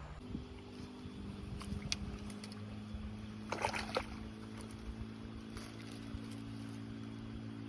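Boat motor running with a steady even hum. Its pitch steps up just after the start. A brief clatter comes about three and a half seconds in.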